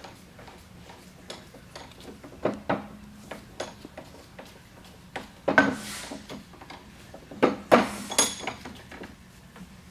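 Metal clanks and clinks of a Crown PTH50 pallet jack hydraulic pump unit being turned over and set in a steel bench vise. A few sharp knocks, the loudest about five and a half seconds in and a quick cluster near eight seconds, some ringing briefly.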